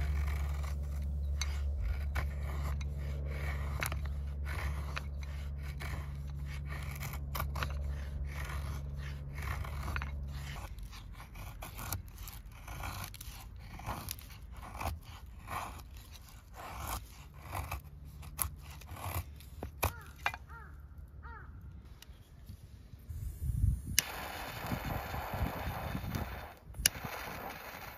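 Knife blade scraping along a softwood stick in repeated strokes, roughly two a second, shaving off curls to make a feather stick. Near the end, a louder stretch of rasping noise.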